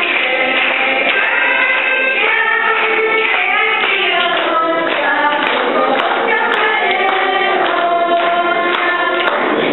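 A group of children singing a Slovak folk song together, the voices steady and continuous.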